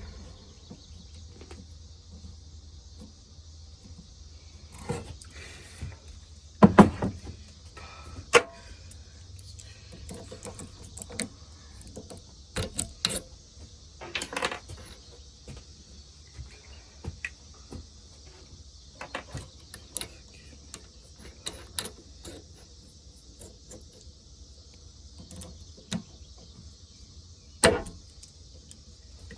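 Scattered knocks and clatter of workshop handling over a steady low hum, with the loudest knocks about seven seconds in and again near the end.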